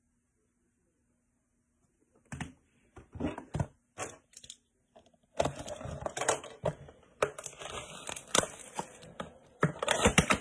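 Near silence for about two seconds, then a few scattered clicks and knocks of a cardboard card box being handled, followed from about five and a half seconds in by the dense crinkling and crackling of a foil Panini Elite football card pack wrapper being handled and torn open.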